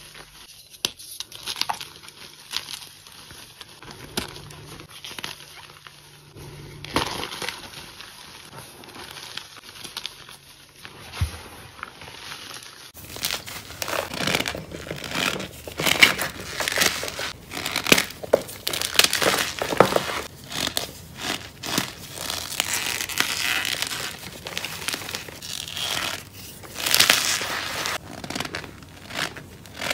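Hands squeezing and crushing cornstarch and blocks of gym chalk: the packed powder crunches and squeaks in quick, crackly bursts. About 13 seconds in it switches abruptly to louder, denser crunching.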